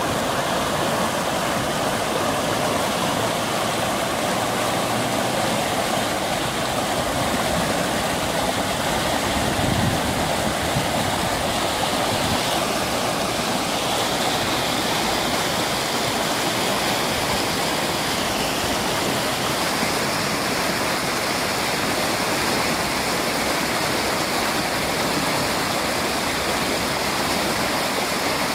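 Muddy floodwater rushing down a rocky wadi bed, a steady, unbroken rushing noise: the river in spate after heavy rain.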